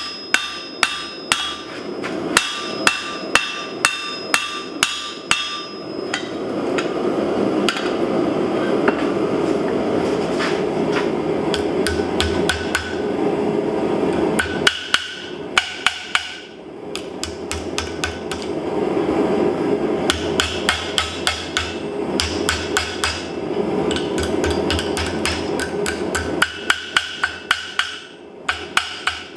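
Hand-hammer blows on hot steel at the anvil, a few strikes a second, each with a bright metallic ring. In the middle come faster, lighter taps as a thin steel oak leaf is shaped over ball stakes, under a steady rushing noise. The ringing blows return near the end.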